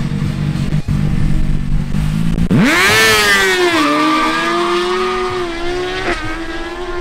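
Honda CB1000R and Suzuki GSX-R1000 inline-four engines holding steady revs on the drag-strip start line. About two and a half seconds in they rise sharply in pitch as the bikes launch. The note then dips and climbs again, with another break near the end as they pull away.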